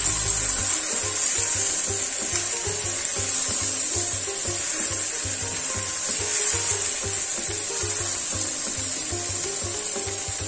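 Masala-coated squid and shallots sizzling in a nonstick pan while a spatula stirs and scrapes through them. Soft background music with a steady beat runs underneath.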